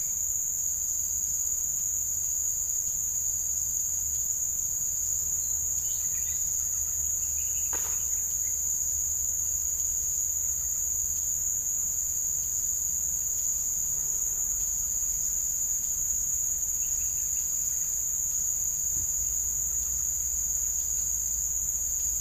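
Steady, high-pitched chorus of insects shrilling without a break, with a fainter pulsing insect trill beneath it.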